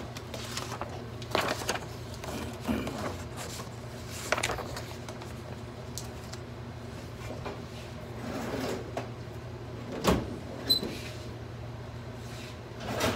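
Paper and hanging file folders being handled in a filing drawer: rustling with scattered knocks, the sharpest about ten seconds in, over a steady low hum.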